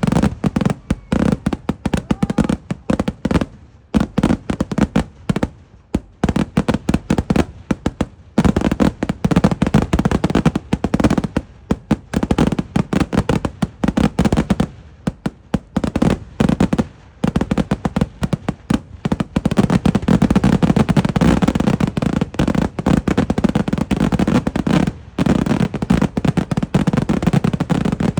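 Eeduvedi fireworks barrage: loud firecracker explosions going off in rapid, almost unbroken succession, with a few brief lulls.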